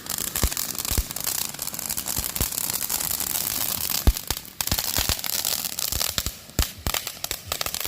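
Consumer fireworks going off: a dense, continuous crackling with many sharp pops scattered through it, thinning out near the end.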